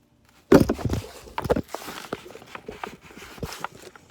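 Irregular knocks and clicks of car parts and tools being handled during reassembly, starting abruptly with a loud knock about half a second in.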